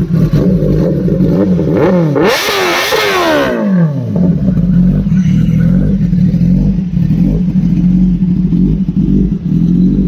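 Motorcycle engine revved in a few quick rising and falling blips with a rush of hiss about two seconds in. The pitch then drops away and the engine settles into a steady running note.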